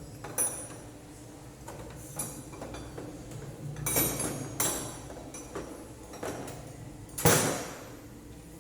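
Metal hand tools and engine parts clinking and knocking as they are handled and set down during cylinder head work on a four-stroke motorcycle engine, a handful of separate clinks with the loudest knock about seven seconds in.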